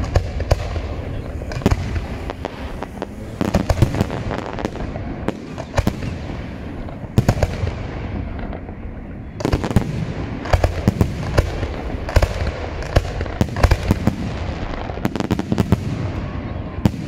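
Aerial firework shells bursting in quick, irregular succession: sharp bangs over a continuous crackle and rumble. After a short lull about eight seconds in, the bangs come thick and fast.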